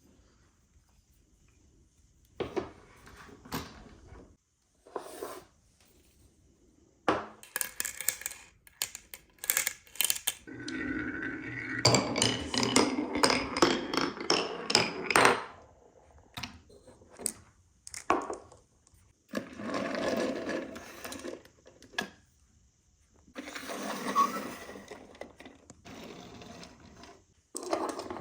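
Marbles rolling and clattering down a wooden marble-run course: sharp clicks as they drop and knock against the track, with several longer spells of continuous rolling rumble, the longest about five seconds, separated by short quiet gaps.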